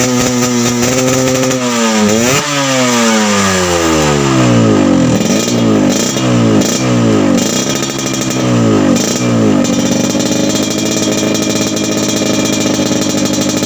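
Yamaha RX King 135 cc two-stroke single-cylinder engine running through a Medan-style aftermarket exhaust. It idles, is revved sharply about two seconds in, then blipped repeatedly with the pitch falling after each blip, and settles back to a steady idle about ten seconds in.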